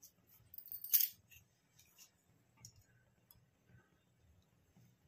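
Faint clinks and taps of kitchen utensils, with a brief louder rattle about a second in.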